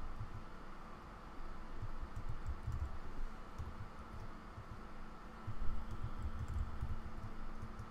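Typing on a computer keyboard: quick bursts of keystrokes with short pauses between, over a faint steady hum.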